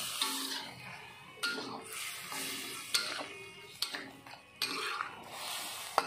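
Metal spatula scraping and clanking against a steel wok about once a second, tossing pieces of frog in a wet soy-sauce mixture.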